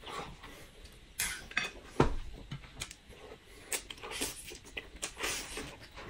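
Mukbang eating sounds: chopsticks clacking against a bowl, with one sharp clack about two seconds in as they are set down, then biting and chewing with scattered short crunchy clicks.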